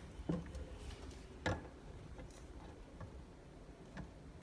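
A few scattered clicks and light knocks as a can is fitted against an electric can opener and the lever and plastic housing are handled. The loudest click comes about a second and a half in. The motor is not running.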